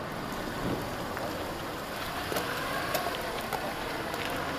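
Outdoor street ambience: steady traffic noise from passing vehicles, with a few light clicks scattered through it.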